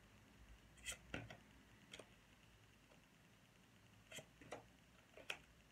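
Near silence with a few faint, short clicks and taps, about six spread unevenly: tarot cards being handled and laid down on a table.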